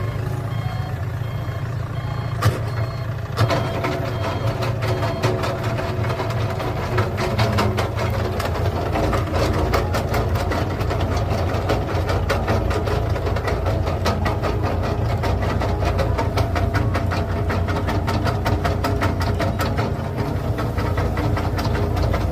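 Tractor engine running steadily as it pulls a garlic digger through the field. A short repeated beep sounds in the first few seconds, and from about three seconds in a fast, continuous clattering rattle runs over the engine.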